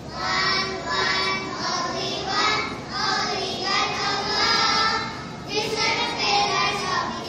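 Young children singing together in one voice, holding notes with short breaks between phrases.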